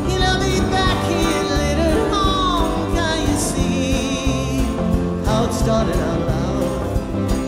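Live acoustic band playing a country-rock song between sung lines: acoustic guitar, upright bass and drums with cymbals and a hand drum. Above them a high melody line slides and wavers.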